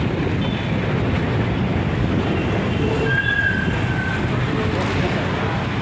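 Steady road-traffic noise with a vehicle's low engine rumble, and a brief high tone about three seconds in.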